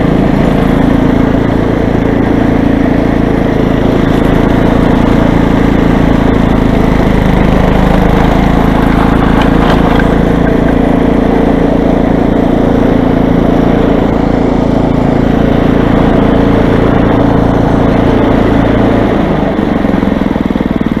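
Toro snow blower's engine running steadily, easing off slightly near the end.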